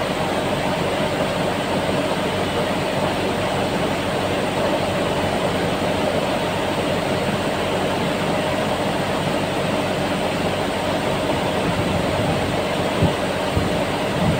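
Steady running noise of a cooling tower: a constant rush with a steady hum underneath, and a couple of low knocks near the end.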